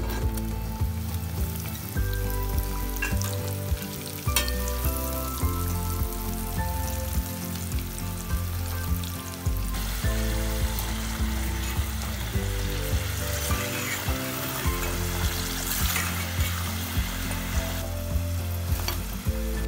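Potato sticks sizzling in hot oil in a saucepan, a steady frying hiss that grows louder about ten seconds in and eases near the end, under background music with a steady beat.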